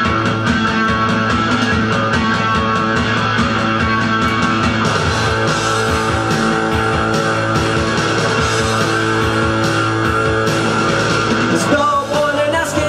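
Punk rock music with electric guitar over a steady drum beat, an instrumental stretch without singing; the arrangement changes near the end.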